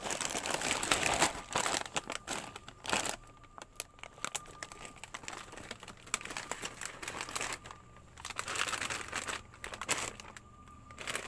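Plastic snack-chip bags crinkling and rustling as they are handled and packed onto a shelf, in busy bursts during the first three seconds and again around eight to ten seconds in, quieter between.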